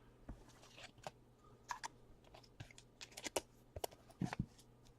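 Faint, scattered clicks and short rustles of trading cards being handled, with about a dozen small irregular ticks.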